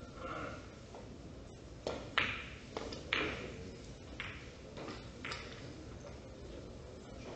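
About half a dozen short, sharp clicks of billiard balls striking, spread irregularly over a few seconds, the loudest about two seconds in.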